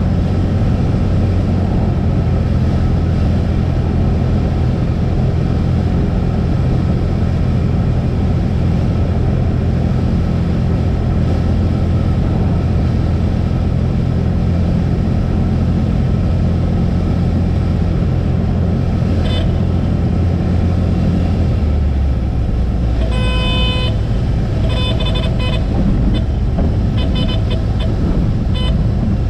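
Cessna 172's piston engine droning steadily in the cockpit, dropping to a lower note about 22 seconds in. The stall warning horn then sounds in a brief blip and several short, broken bursts over the next few seconds, typical of a gusty landing flare.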